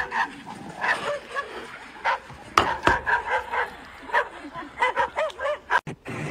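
Dogs barking at each other across a metal fence, a rapid run of short barks that cuts off suddenly near the end.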